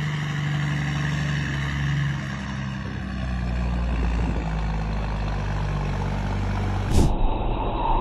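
Semi truck engine running with a steady low hum, the low rumble growing heavier about three seconds in. A sharp click near the end, after which a different vehicle sound takes over.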